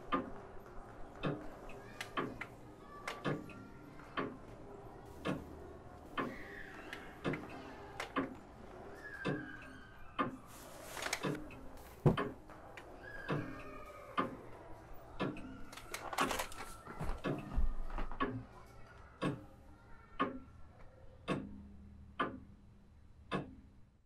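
Clock ticking steadily, about once a second, with faint rustling and one louder knock about twelve seconds in.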